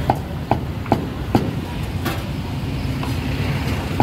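A cleaver or knife chopping on a cutting board: four evenly spaced strikes, about two a second, in the first half, over a steady low rumble of market and traffic noise.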